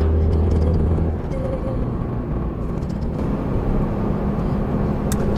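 Car engine and road noise heard from inside the cabin while driving, a steady low hum that eases a little about a second in.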